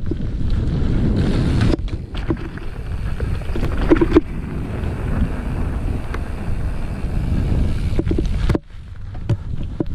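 Wind rumbling on the camera microphone of a mountain bike riding a dirt trail, with the bike's rattles and a few sharp knocks, the loudest about four seconds in. The rumble drops briefly near the end.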